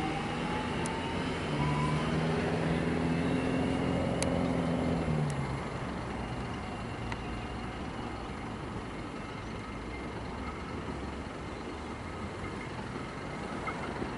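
Alstom X'Trapolis 100 electric suburban train pulling away, its traction motors whining upward in pitch as it accelerates. The motor hum falls away about five seconds in, leaving a steady low background rumble.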